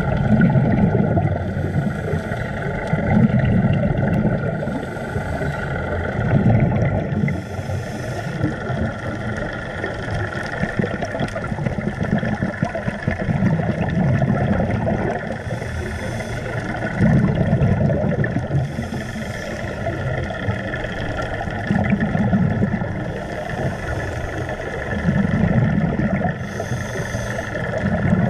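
Underwater scuba breathing through a regulator: a bubbling rumble of exhaled air every three to four seconds, with hissy surges in between, over a steady hum.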